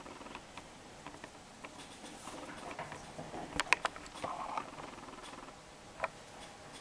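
Jack Russell Terrier puppy's claws clicking and pattering on a tile floor as it scampers about, with a quick cluster of sharp clicks about halfway through and one more near the end.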